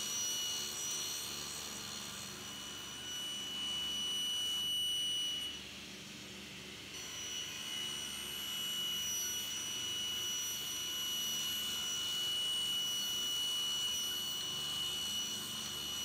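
Table saw running while trimming a glued-up hardwood cutting board, a steady high-pitched whine from the spinning blade over a light hiss. The whine drops out for about a second near the middle, then returns.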